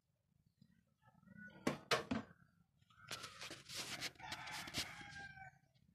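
Faint animal calls with a couple of sharp knocks about two seconds in, then a longer pitched call mixed with clattering from about three seconds in.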